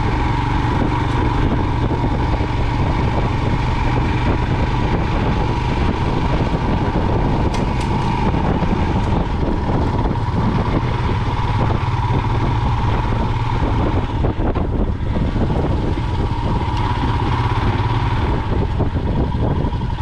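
Royal Enfield Himalayan's single-cylinder engine running steadily as the motorcycle is ridden slowly over a potholed road. The sound dips briefly about three-quarters of the way through.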